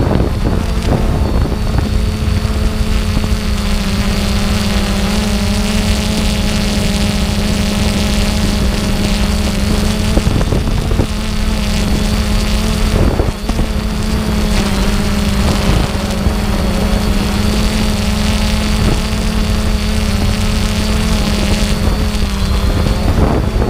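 An engine running at a steady speed, its pitch holding level, over a heavy low rumble like wind on the microphone.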